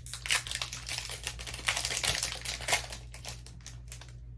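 Foil Pokémon booster pack being torn open and crinkled in the hands: a rapid run of crackling ticks, busiest for the first three seconds and thinning out after, over a steady low hum.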